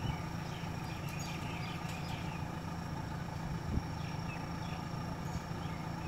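JCB backhoe loader's diesel engine running steadily at a low rumble, with a single low thump a little past the middle.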